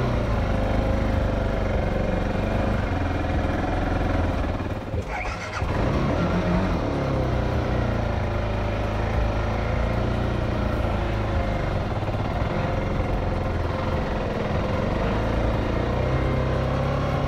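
A motorcycle engine running steadily under load while being ridden off-road, its pitch wavering with the throttle. The sound briefly drops about five seconds in.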